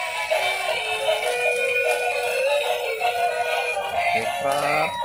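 A thin, tinny electronic tune with synthesized singing, played by battery-operated dancing toys through their small built-in speakers.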